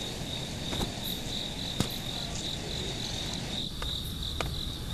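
Crickets chirping in a steady high trill with an even pulse, and a few faint clicks over it.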